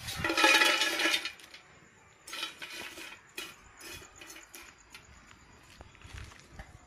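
Small dried fish tipped from a steel bowl into an aluminium pan, clattering against the metal for about a second, followed by a few lighter clinks and knocks.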